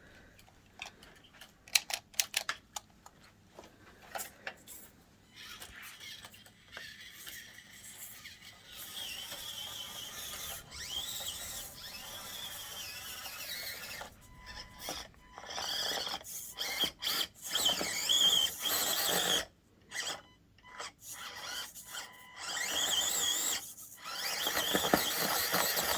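Electric motor and drivetrain of an Axial Deadbolt 1/10-scale RC crawler whining in stop-and-start bursts as it is driven over obstacles, with a few sharp clicks near the start.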